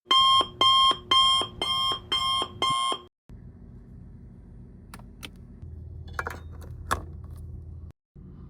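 Electronic alarm beeping six times, about two beeps a second, then stopping. A low steady hum follows, with a few sharp clicks.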